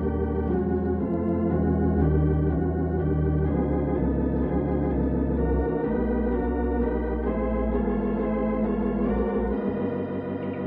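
Organ playing a musical bridge between scenes of an old-time radio drama: a slow run of held chords over a sustained bass.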